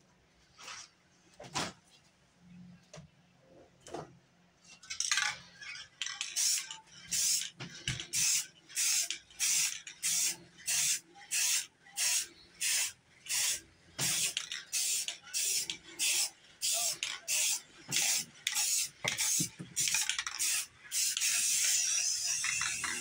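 An aerosol spray paint can being sprayed in short, quick bursts, about two hisses a second, then one longer continuous spray near the end. A few sharp taps come in the first few seconds.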